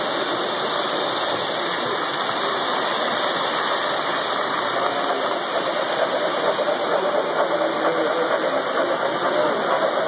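O-gauge model trains running on the layout: a steady rolling rumble of wheels on the metal track and electric motors. It turns a little more uneven in the second half, as a train rolls past close by.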